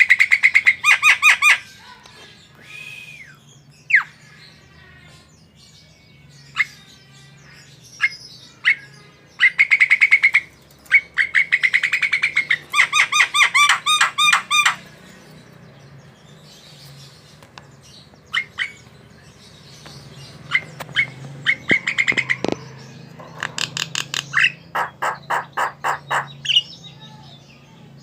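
Javan myna (jalak kebo) in full song: three long runs of fast, rapidly repeated harsh notes, near the start, in the middle and near the end, with single sharp whistles and squawks between them.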